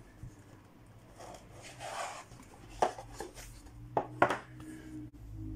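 Hands handling a tablet and its cardboard box: soft rubbing and sliding as the tablet is lifted out, then a few sharp taps and clicks about three and four seconds in. A low steady tone comes in near the end.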